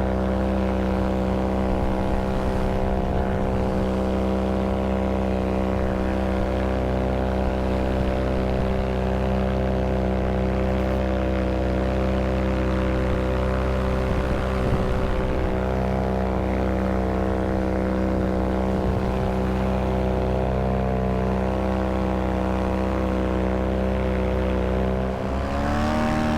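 Vittorazi Moster 185 single-cylinder two-stroke paramotor engine and propeller running at a steady speed, its pitch rising slightly just before the end.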